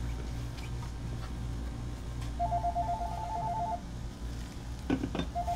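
Mobile phone ringtone: a rapid, pulsing two-tone beeping that starts about two and a half seconds in, stops after over a second, and starts again near the end. A steady low hum runs underneath, and there are a couple of knocks just before the second ring.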